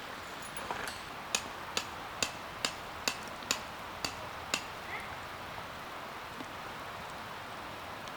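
About eight sharp strikes in an even rhythm, roughly two a second, that then stop: a tent peg being hammered into the ground during camp set-up. A steady hiss runs underneath.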